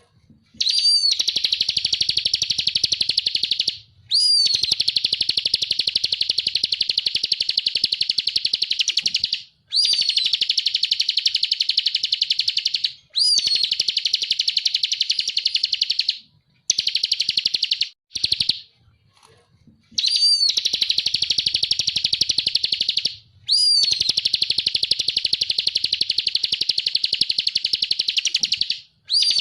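Bar-winged prinia (ciblek kristal) singing in long loud phrases of a very fast, high, buzzy trill, each opening with a short curved whistled note. The phrases last about three to five seconds with brief pauses between them, and there is a longer pause a little past the middle.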